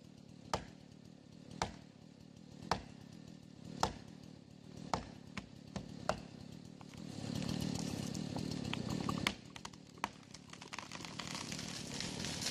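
Sharp knocks in an even rhythm, about one a second, then about seven seconds in a couple of seconds of rough, louder noise, followed by a few scattered knocks.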